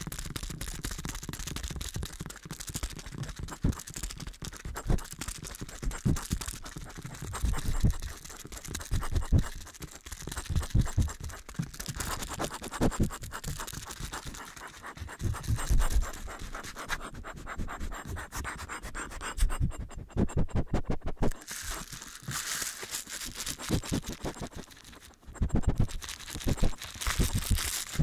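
Rapid, close-miked scratching and rubbing by hand on or right at the microphone, in irregular bursts of quick strokes with low thuds underneath.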